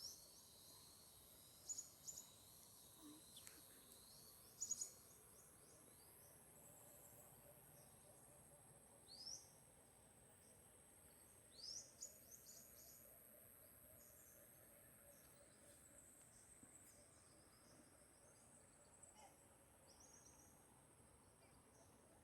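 Quiet natural soundscape: a steady high-pitched insect drone, with short bird chirps every few seconds.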